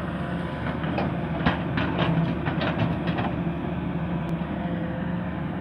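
Hitachi hydraulic excavator's diesel engine running steadily as it dumps a bucket of soil into a dump truck. Starting about a second in, for a couple of seconds, clods and stones knock and rattle onto the truck bed.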